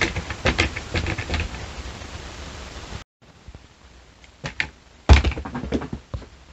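Laser-cut wooden walking Moai model clicking and clacking as it rocks step by step down a board ramp, the clicks dying away as it stalls on a slope too gentle to keep it walking. After a short break, a few more clicks and one loud clack about five seconds in as it tips over off the ramp, followed by smaller rattles.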